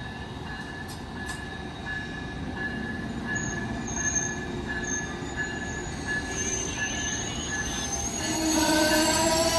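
Amtrak passenger train led by a Siemens Charger diesel locomotive approaching, growing steadily louder, with high-pitched wheel squeal from about a third of the way in. Several lower pitched tones come in near the end.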